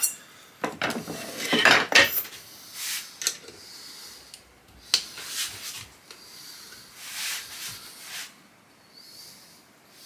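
Screwdriver tip scraping and clinking against the steel bolt of a 1907 Carcano rifle held in a bench vise, as a stuck extractor is levered back against the bolt face. A run of irregular metallic scrapes and clicks, busiest in the first two seconds and sparser after.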